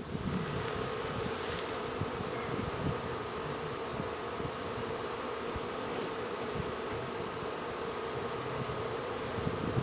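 A swarm of honey bees buzzing close by: a dense, steady hum of many wings.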